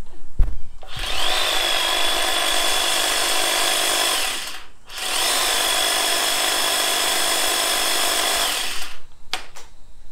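Cordless pole hedge trimmer running with no load, its blades reciprocating, in two runs of about four seconds each with a half-second stop between. Each run has a steady high whine that rises briefly as the motor spins up, and a few clicks of handling come after it stops.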